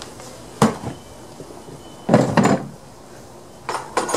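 Plastic rolling toolbox being opened and tools handled: a single knock, then a heavier clatter about two seconds in, then light clinks of metal tools near the end.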